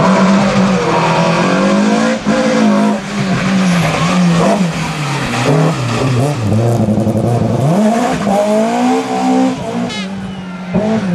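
BMW E30 M3 Group A rally car's S14 four-cylinder engine revving hard as the car drives off, its pitch rising and falling again and again with throttle blips and gear changes, with a long climb about eight seconds in.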